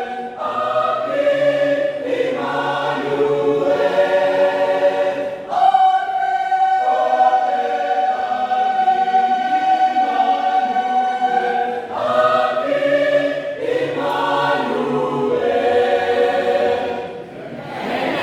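Choir singing in harmony, with a long held note through the middle of the passage. A short burst of noise comes just before the end.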